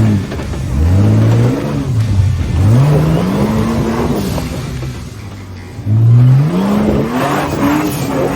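Four-wheel-drive engine revving up and easing off again and again, its pitch rising and falling in about five surges, the strongest near the end.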